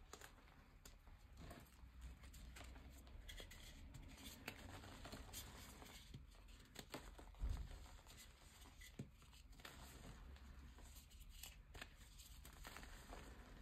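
Faint, irregular crunching and crackling of a compressed gym chalk block being crushed and crumbled by hand into loose powder, with a single dull thump about seven and a half seconds in.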